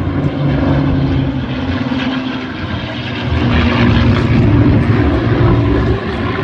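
Piston engines of a formation of three propeller aircraft, a twin-engine plane with two single-engine fighters, droning as they fly past. The drone grows louder from about halfway through.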